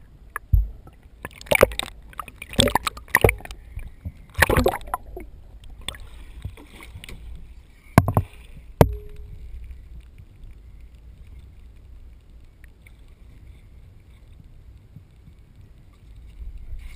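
Water splashing and knocking against a waterproof camera as it moves through choppy water at the surface: a string of sharp knocks and splashes in the first nine seconds, then a steady low rumble of water.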